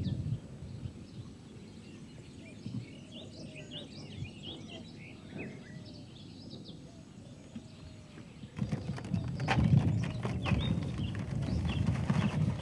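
Faint outdoor background with scattered high chirps, then, about two-thirds of the way in, louder rustling and irregular knocking as hands mix dry groundbait in a plastic bucket.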